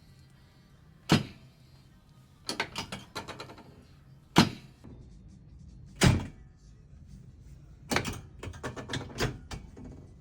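Chiropractic adjustment on a treatment table: five sharp thunks spaced a second or more apart, with quick runs of smaller clicks in between.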